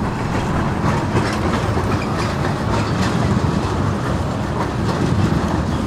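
Tram running on street rails, a steady rumble with scattered clicks.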